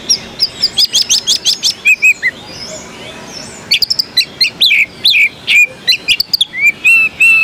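Oriental magpie-robin (kacer) singing a fast run of sharp chirps and down-slurred whistles, pausing for about a second partway through before starting again.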